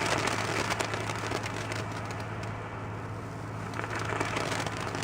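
Lit firework hissing and crackling, a dense run of small sharp pops that thins out after a couple of seconds, with a steady low hum underneath.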